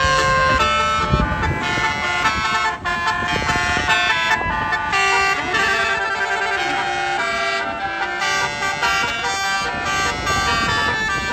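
Basuri telolet horn on a tour bus playing a quick melody of short stepped notes, with a bus engine running underneath.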